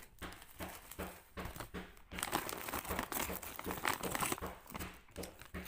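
Plastic bags crinkling as they are handled: light, scattered rustles at first, then dense, continuous crinkling from about two seconds in, easing off near the end.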